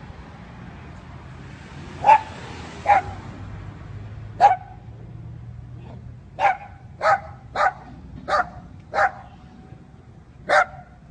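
Dog barking: nine short, sharp barks, starting about two seconds in and coming at irregular intervals, some in quick pairs.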